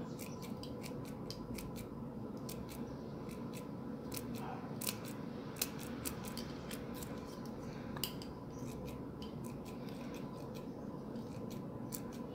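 Metal scissors snipping the loose sisal fibres off rope wound around a glass jar: a string of short, irregular snips over a steady low background.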